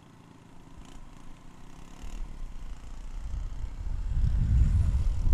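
Motor scooter pulling away and picking up speed: its engine runs quietly at first, then a deep wind rumble on the camera microphone builds from about two seconds in and becomes loud near the end.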